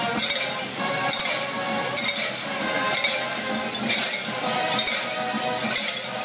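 Many cowbells clanging together in a rhythmic surge about once a second: a crowd of Mississippi State fans ringing cowbells over a din of held pitched tones.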